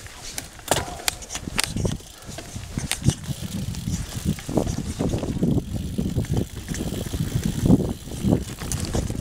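Mountain bike rolling fast over a dry-leaf-covered dirt trail: tyres crunching through the leaves, with several sharp rattles and knocks from the bike over bumps in the first two seconds, then a denser, uneven rumble.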